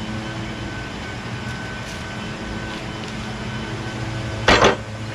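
Kohler Courage engine on a Craftsman YS4500 lawn tractor running steadily, having just started and running fine. A loud short clatter comes near the end.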